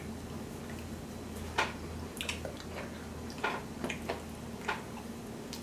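Close-up eating sounds at a seafood boil: scattered wet clicks and smacks of chewing and handling food, a few each second or so, over a faint low hum.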